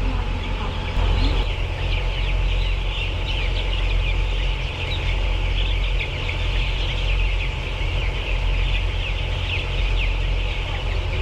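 A large flock of chickens in a poultry house, many birds calling at once in a dense, continuous chatter, over a steady low hum.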